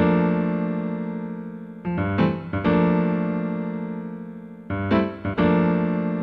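Background music: piano chords, each held and slowly fading, struck anew about every two and a half seconds with a few quick notes in between.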